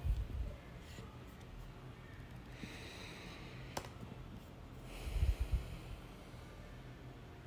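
Slow, deep breathing close to the microphone while holding a yoga pose: an exhale puffing on the mic at the start, a hissing inhale about three seconds in, and another puffing exhale about five seconds in.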